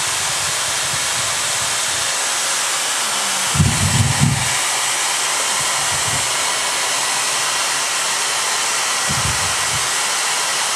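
Hand-held hair dryer blowing steadily to dry wet watercolor paint, a loud even rush of air. A couple of brief low thumps come through it about four and nine seconds in.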